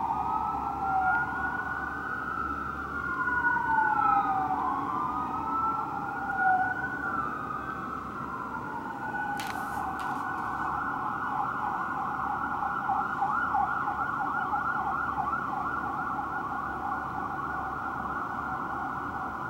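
Fire truck sirens: two slow wails rising and falling out of step with each other, which change about eight seconds in to a fast yelp that carries on. Two short sharp clicks come about halfway through.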